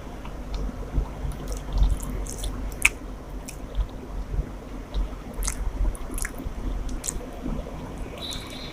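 Close-miked chewing and wet mouth sounds of someone eating a rice-and-curry meal, with irregular sharp smacks and clicks.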